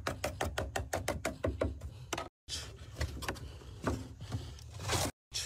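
A knife stabbing and slashing into a car seat's upholstery and foam: a fast string of sharp thuds and knocks, about five or six a second, broken twice by a brief drop-out.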